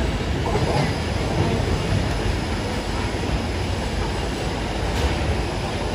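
Yamanote Line electric commuter train pulling out and running off along the station tracks, a steady rumble.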